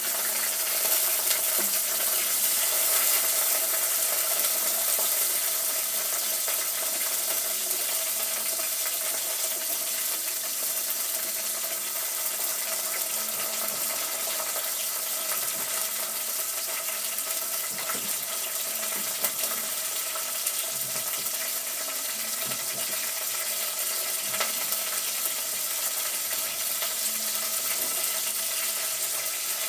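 Food frying in a pan: a steady sizzle with a few light clicks.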